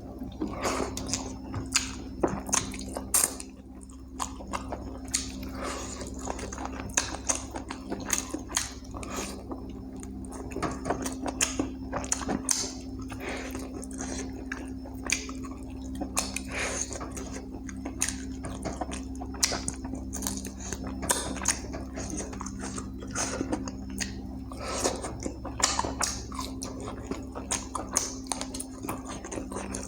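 Close-miked eating: a person chewing and biting through chicken curry with rice, with frequent irregular wet smacks and clicks. A steady low hum sits underneath.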